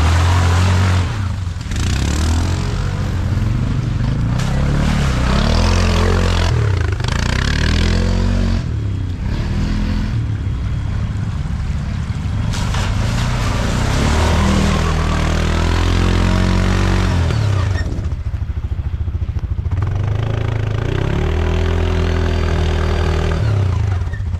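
ATV (quad bike) engine revving up and down over and over as it is ridden hard, its pitch climbing and dropping every couple of seconds, with a rushing noise of wind and tyres underneath.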